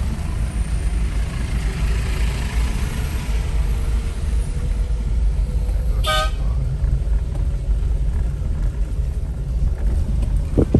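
Steady road and engine rumble of a car driving, with one short car-horn toot about six seconds in.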